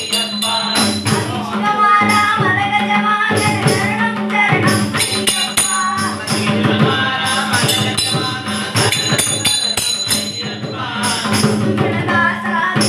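Music: a hand-played barrel drum with jingling, tambourine-like percussion and singing voices.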